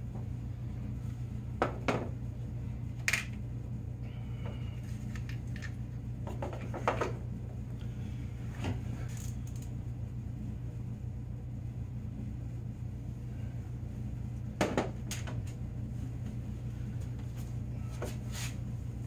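Scattered clinks and knocks of metal hand tools and bolts being handled and set down on a snowmobile's tunnel, the sharpest about 2, 3, 7 and 15 seconds in, over a steady low hum.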